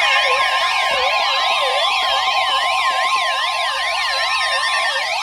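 Emergency alert tones: a steady single-pitch weather-radio warning tone near 1 kHz, overlaid with several warbling electronic siren tones that rise and fall about three times a second. The steady tone cuts off near the end.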